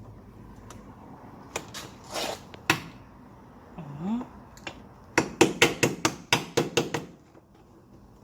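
Sharp clicks and knocks of hand tools and parts being worked in an engine bay: a few scattered knocks, then a quick run of about ten evenly spaced clicks, around six a second.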